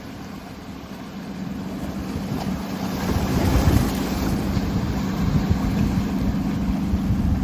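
Boat engine running with a steady low hum that grows louder over the first few seconds as the boat approaches, with wind on the microphone and a louder wash of noise about halfway through.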